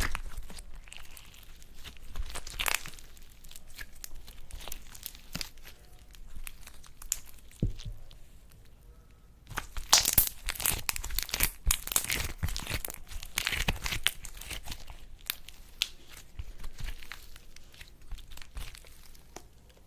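Slime being worked by hand, stretched and pressed, with dense crackling and tearing sounds. It is loudest and busiest in a stretch about ten to fifteen seconds in.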